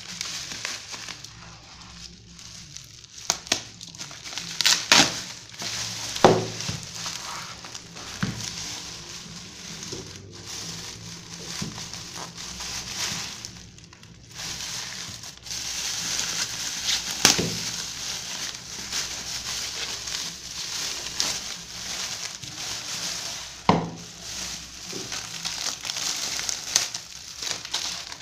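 Plastic packaging (bubble wrap and a thin plastic bag) crinkling and rustling as it is handled and pulled off a plastic tumbler, with a few sharp cracks along the way.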